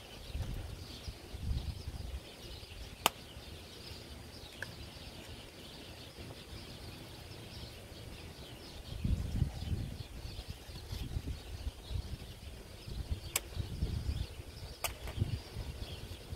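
Outdoor background of faint bird chirps, with low rumbling gusts of wind on the phone's microphone and three single sharp clicks.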